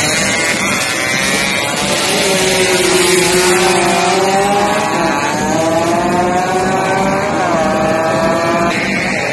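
Drag-race motorcycles at full throttle, accelerating away. Each engine note climbs in pitch and drops back at every gear change, about four shifts in all.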